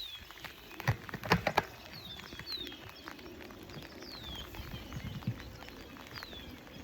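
A songbird repeating a short high call that slides down in pitch, about once a second. A few sharp taps land about a second in, the loudest sounds here.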